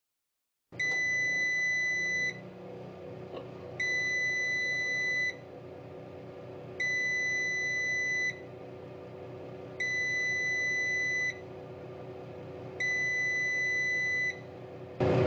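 Emerald 25L digital air fryer oven sounding its end-of-cycle alarm: five long, high-pitched beeps about three seconds apart over a steady low hum, signalling that the timer has run out.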